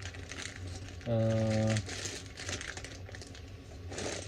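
Plastic packaging crinkling as a Lego set's parts bags are handled, with a brief hummed "mm" from a man about a second in.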